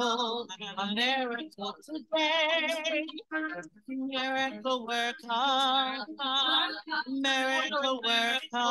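A woman singing in held, wavering notes with vibrato, in phrases broken by short pauses.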